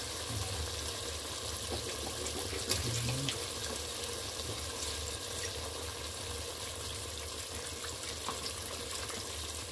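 Chicken pieces cooking in soy sauce and their own juices in a stainless steel pot, giving a steady hiss of sizzling and simmering liquid, with a light click about three seconds in.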